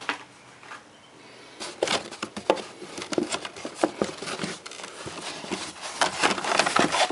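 Blister-carded toy cars being pulled out of a cardboard shipping case. Plastic blisters and card backs crinkle, click and scrape against each other and the cardboard in an irregular run that starts about a second and a half in.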